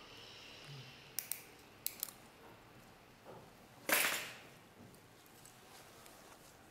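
Small metal orthodontic hand instrument clicking as the cantilever is tied to the palatal button: two quick pairs of sharp clicks in the first two seconds, then a louder short snap about four seconds in.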